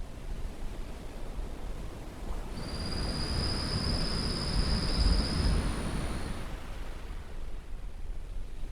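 Caribbean surf washing in: a steady rush of noise swells about a third of the way in and fades away again. While it swells, a thin, high, steady whine sounds for about three seconds.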